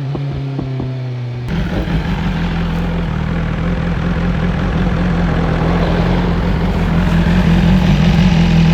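BMW S1000R inline-four engine, first at a low steady note with a few sharp ticks. About a second and a half in it switches abruptly to a higher, steady engine note under a rush of wind noise, which slowly grows louder.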